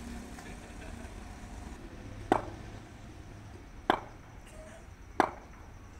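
Three sharp knocks about a second and a half apart: a cricket bat being tapped on the hard pitch at the crease.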